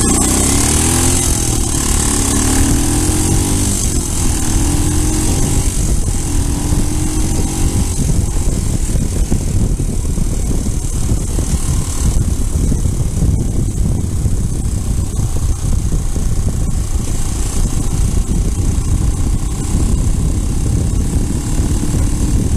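Motorcycle accelerating, its engine pitch climbing and dropping back about four times in the first eight seconds as it shifts up through the gears. After that comes a steady low rumble of wind and road at speed, heard through a sponge wind muff on an action camera's microphone.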